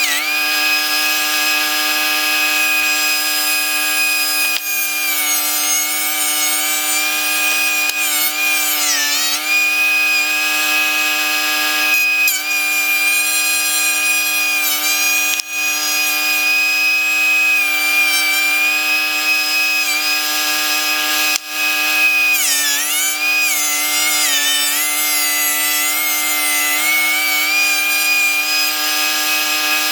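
DeWalt 13-inch thickness planer running with a loud, steady high whine. It planes pine boards, and its pitch sags a few times as the boards load the cutterhead. A few sharp knocks are heard.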